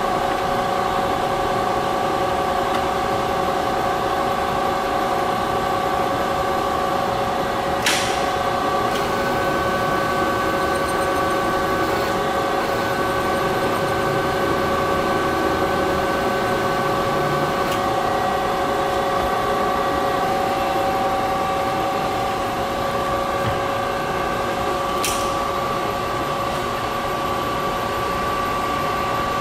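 Warner & Swasey #5 ram-type turret lathe running, a steady machine whine of several constant tones from its motor and geared head. A sharp click comes about eight seconds in, and another near twenty-five seconds, as the carriage controls are shifted. A higher whine joins just after the first click and drops out about eight seconds later.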